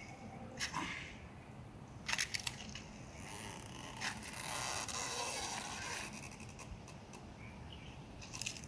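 Giant tortoise biting and crunching dry fallen leaves: a few crisp crunches, a quick cluster of them about two seconds in, and a longer dry rustle in the middle.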